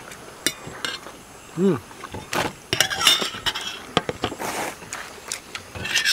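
Forks clinking and scraping against a metal pan and tableware while two people eat, in a scatter of short sharp clinks. A brief hummed "mm" of one voice, rising then falling, about a second and a half in.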